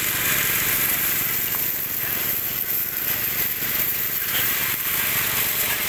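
High-pressure water jet from a hose lance spraying onto porous coral rock to wash it, a steady hiss, with a small pump engine running underneath.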